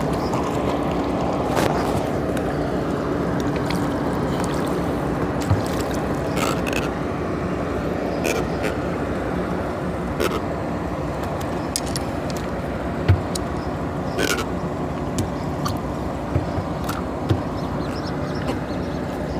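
A hooked catfish thrashing and splashing at the water's surface and then swung out on the line, over a steady rushing noise, with scattered short sharp clicks and knocks.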